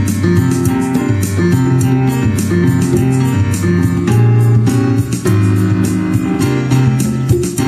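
Instrumental band music from a Yamaha S910 keyboard workstation: keyboard and guitar voices over a steady beat.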